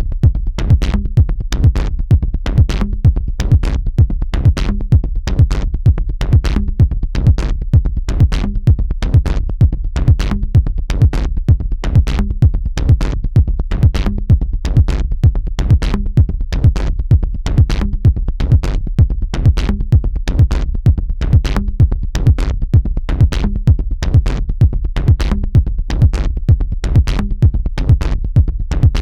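Electronic dance music with a steady drum-machine beat and heavy bass.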